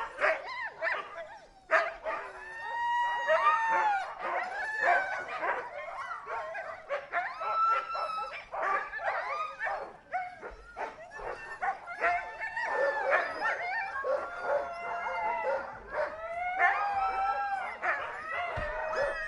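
A group of huskies barking, yipping and howling together in an overlapping clamour, with drawn-out, pitch-bending howls about three seconds in and again toward the end.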